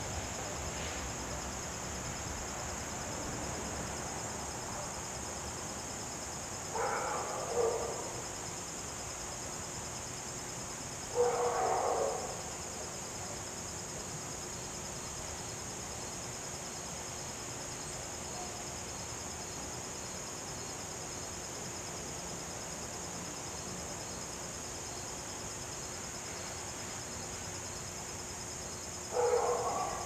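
Three short animal calls, each about a second long: the first two come close together a quarter to halfway in, and the third comes at the very end. They sit over a steady high hiss.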